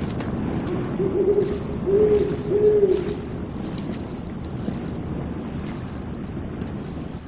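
An owl hooting a few times between about one and three seconds in, short hoots that rise and fall slightly in pitch, over a steady low night background.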